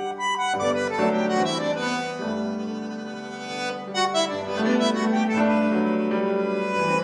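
Live instrumental music from a studio band: piano under a sustained melody of held notes.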